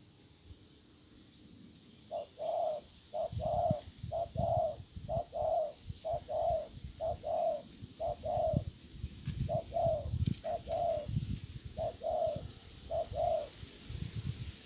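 Spotted dove cooing: a long series of short, low coos, mostly in pairs, starting about two seconds in and stopping shortly before the end.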